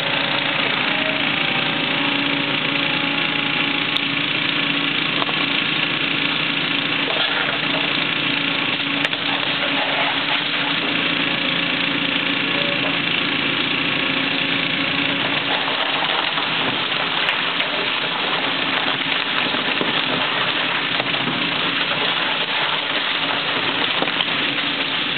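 Caterpillar hydraulic excavator's diesel engine running steadily under demolition work.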